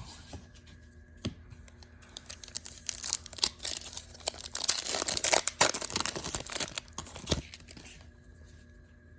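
A hockey card pack's wrapper being torn open and crinkled, with a dense run of crackling and tearing in the middle that dies down near the end.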